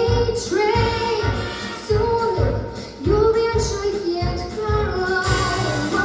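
A young girl singing a swing jazz tune over an accompaniment with a steady beat about twice a second.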